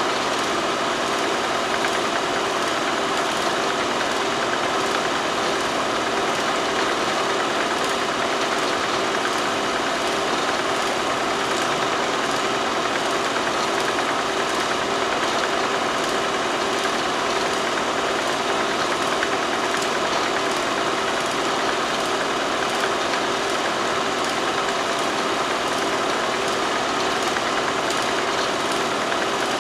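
Steady machine whir and hum with faint, evenly spaced ticking, unchanging throughout and unrelated to the silent footage; likely a film projector or transfer equipment running.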